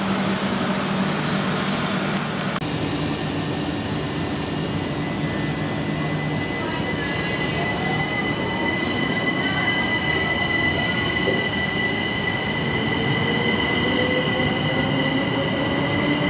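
Southeastern electric multiple unit pulling past the platform and picking up speed: steady running noise of the wheels on the rails, a high steady squeal, and a faint whine that rises in pitch as it accelerates.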